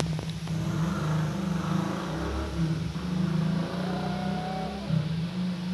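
Domestic cat growling low and steadily in threat at a lizard, the growl wavering in pitch with short breaks about three and five seconds in, and a faint higher yowl partway through.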